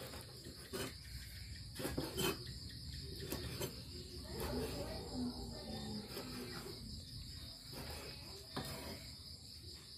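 A steady, high-pitched insect chorus, with a few sharp knocks about two seconds in and again near the end.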